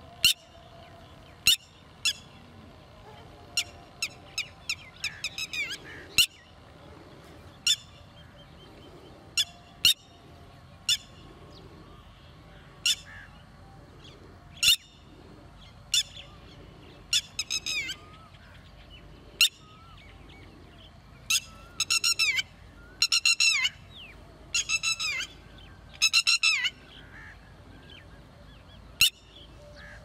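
Red-wattled lapwing calling: short, sharp high notes every second or two, then from about halfway, several quick runs of rapidly repeated notes.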